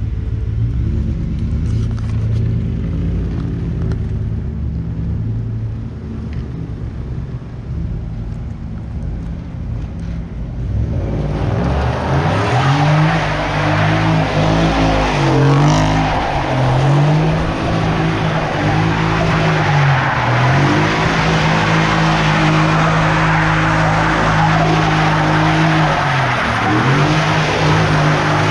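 Ford F-150 pickup on mud tires drifting: the engine runs low at first, then from about twelve seconds in is held at high revs with several brief lifts while the tires squeal and skid.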